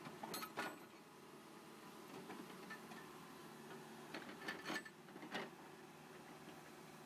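Backhoe loader running steadily at a low level, with a few sharp metallic clanks from the digging bucket and its linkage, two near the start and a cluster about four to five and a half seconds in.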